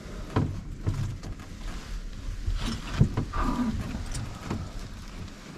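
Scattered knocks and bumps with shuffling, of people moving about inside a wooden box deer stand. The loudest knock comes about three seconds in.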